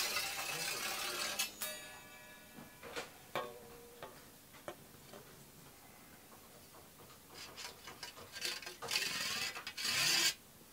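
A hand file rasping across the steel teeth of a Japanese ryoba saw in quick strokes as the saw is resharpened. The thin blade rings briefly after the opening strokes, light ticks and scrapes follow, and a second run of filing strokes comes near the end.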